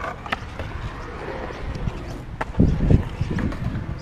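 Skateboard wheels rolling and carving on a concrete bowl: a steady rumble with scattered clicks, and a cluster of louder low thumps about two and a half seconds in.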